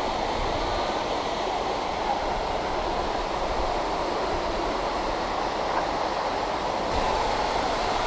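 Steady rushing of a waterfall pouring into a rock pool, an even noise without a break.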